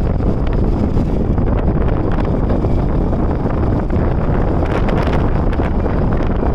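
Wind buffeting the microphone of a Yamaha R15 motorcycle riding along a gravel dirt road, with the bike's engine and tyres running underneath. The noise is loud and steady throughout.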